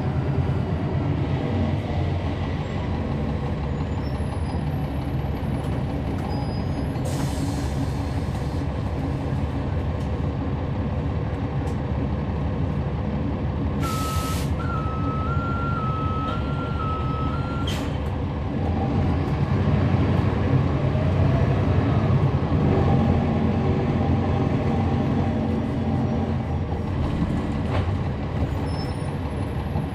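Inside a NABI 40-SFW transit bus, its Cummins ISL9 diesel engine drones steadily. About halfway through comes a sharp hiss of air, then a two-tone alternating beep for about four seconds that ends in a click; a few seconds later the engine grows louder for a while.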